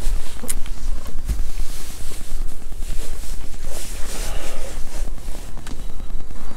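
Wind buffeting the microphone, a constant heavy low rumble, with a few handling knocks and rustles as the phone is moved about.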